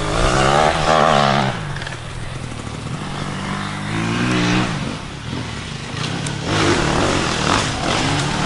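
Dirt bike engine revving up and dropping off several times as the rider works the throttle through the gears.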